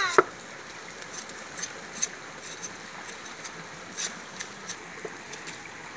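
Steady outdoor hiss, with a few faint, sharp taps scattered through it.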